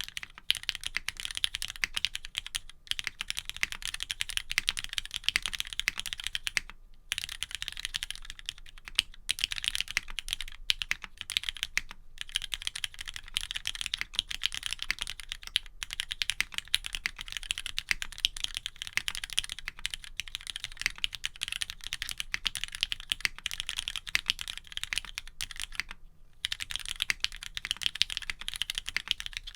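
Continuous fast typing on a custom Geon Works F1-8X mechanical keyboard: lubed Cherry MX Black Hyperglide linear switches in an aluminium plate, polycarbonate bottom case with case foam only, and ePBT Gok Bow keycaps. The clacks come in dense runs with a couple of short pauses, about seven seconds in and again a few seconds before the end.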